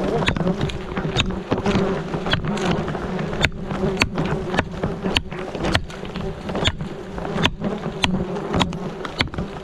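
A swarm of insects from a wild bee or wasp nest buzzing in a steady deep hum, with frequent sharp clicks scattered through it.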